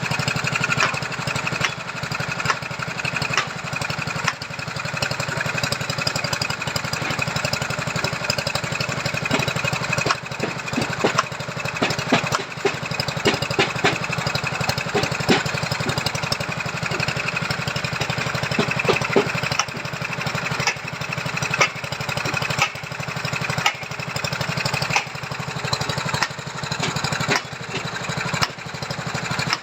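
Small petrol engine of a machine foundation-boring auger running steadily, with scattered sharp knocks.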